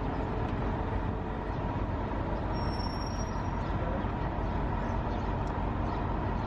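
Steady rumble of a sightseeing bus and street traffic, heard from the bus's open top deck.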